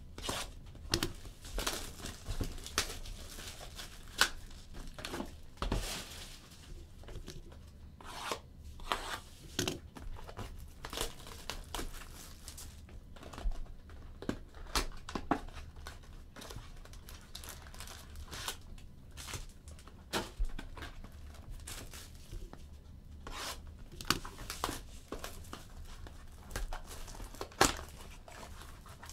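A sealed Bowman's Best trading-card box being torn open by hand: its wrapping crinkling and the cardboard ripping, in a long run of irregular sharp crackles and tears.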